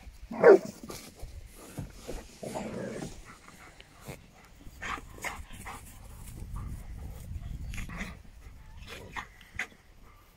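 Two dogs, a golden retriever and a black-and-tan dog, play-fighting on dry grass: panting and scuffling, with one loud short squeal about half a second in.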